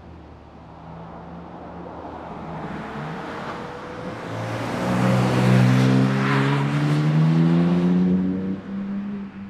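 BMW M4 Competition's 3.0-litre twin-turbo inline-six, its exhaust note faint at first, then climbing in pitch and growing loud from about halfway as the car accelerates past. The note drops away sharply near the end.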